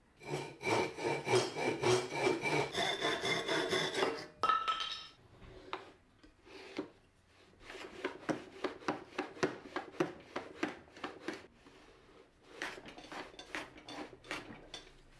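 A hand saw cutting through a strip of oak in quick strokes for about four seconds. Then a hand plane run on a shooting board, trimming a 45° mitre on the end grain in short, rapid strokes, in two runs with a brief pause between.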